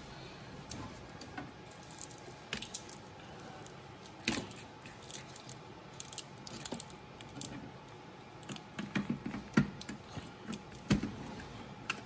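Handling noise from a GPU power cable and its plastic connectors being fitted to an NVIDIA Tesla P100 card on its riser bracket: scattered light clicks, taps and rattles, with a few sharper knocks, the loudest near the end.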